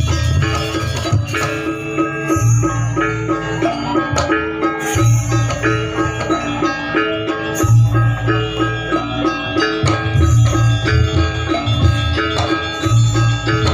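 Janger Banyuwangi gamelan music: metallophones ring in a quick repeating pattern over drums and deep bass notes that come and go every second or two.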